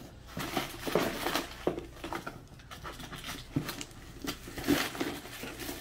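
Irregular rustling with light clicks as small packets of anklets are handled and opened by hand.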